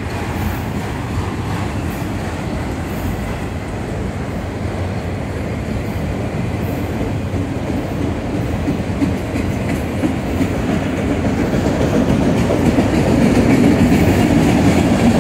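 Autorack freight cars of a slow-moving train rolling past: a steady rumble of steel wheels on rail with clickety-clack, growing louder over the last few seconds.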